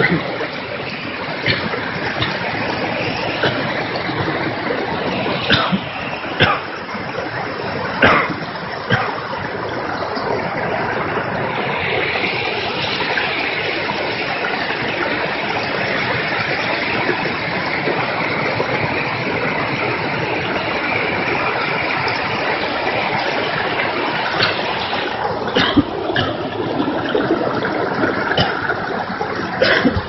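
Mountain creek rushing over rocks, a steady rush of water, with a few short sharp sounds in the first nine seconds and again near the end.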